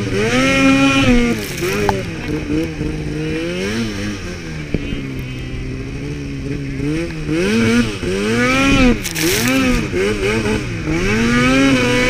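Arctic Cat mountain snowmobile's two-stroke engine being ridden hard through deep powder, the revs swelling and dropping again and again as the throttle is worked, with a steadier, slightly quieter stretch in the middle.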